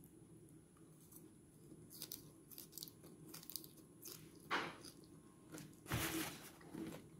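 Soft crunching and scraping of food being handled on a plate: a slice of fried spam is set onto a bed of arugula. Scattered light clicks, with louder crunches about halfway through and near the end.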